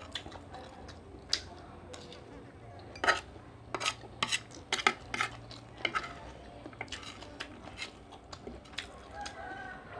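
Cutlery clinking and scraping against a plate or bowl during eating, in many short, irregular clicks that are busiest in the middle.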